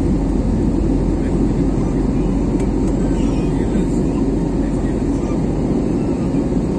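Steady low drone of a jet airliner's turbofan engines and rushing air, heard inside the cabin from a window seat over the wing.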